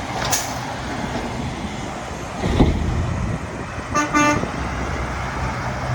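Steady rumble of vehicles and traffic, with a quick vehicle horn toot about four seconds in.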